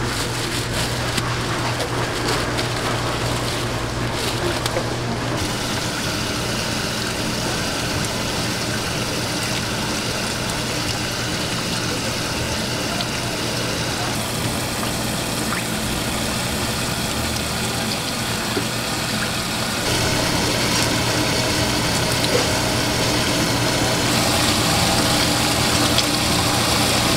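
A steady low machine hum under a general kitchen din, with water and raw shrimp being worked by hand in a steel tray. The background changes abruptly a few times and grows a little louder about two-thirds of the way through.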